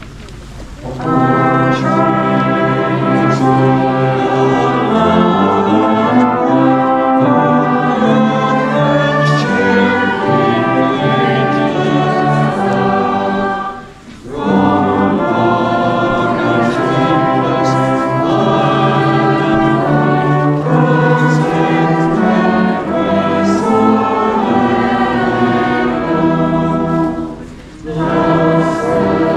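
A brass band of cornets, tenor horns and euphoniums playing a hymn in sustained chords, with a crowd singing along. It pauses briefly about halfway and again near the end, between phrases.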